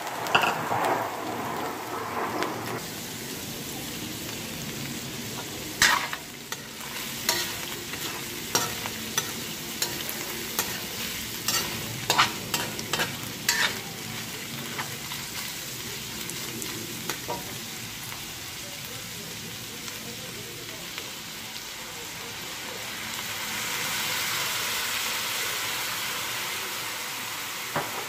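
Sliced meat and onions sizzling in a metal wok while a metal spatula scrapes and clacks against the pan. The sharp clacks come in a run from about six seconds in to about halfway, and the sizzle swells louder near the end.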